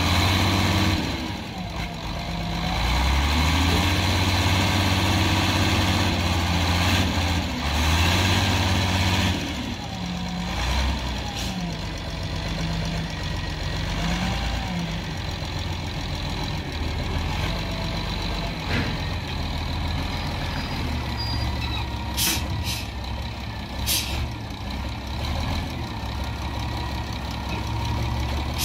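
Wheel loader's diesel engine working, loud for the first nine seconds, then dropping to a lower run with the revs rising and falling. Two short hisses about two seconds apart near the end.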